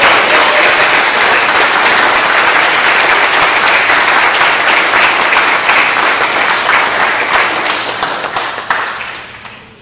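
Congregation applauding: loud, dense clapping that tapers off and fades out near the end.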